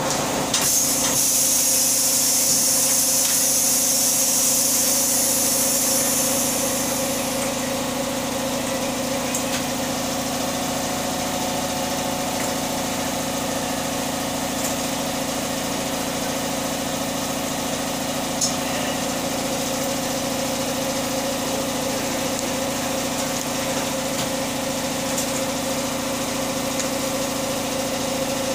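A machine running with a steady hum, with a high hiss for the first seven seconds or so and a few faint clicks later.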